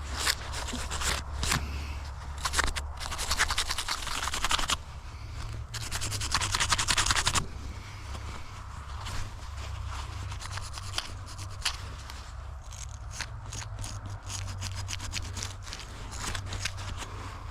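Digging in field soil with a hand digging tool: repeated scraping and crunching of dirt, with two longer spells of scraping about three and six seconds in, then lighter scratches and clicks.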